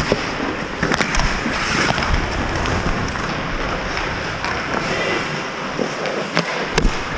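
Ice hockey skates scraping and carving on rink ice, with sharp clacks of sticks and puck striking several times.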